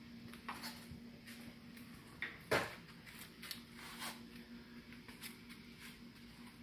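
Scattered light clicks and taps with one sharper knock about two and a half seconds in, over a faint steady hum.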